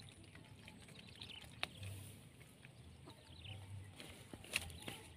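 Faint open-air ambience: a low wind rumble on the microphone that swells now and then, a steady high hiss, and scattered short high chirps. Two sharp clicks stand out, about one and a half seconds in and again near the end; the second is the loudest sound.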